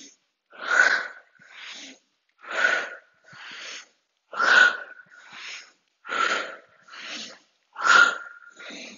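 A woman's heavy breathing close to the microphone during squats: five pairs of a forceful breath and a softer one, about one pair every two seconds. The forceful breaths carry a faint whistle.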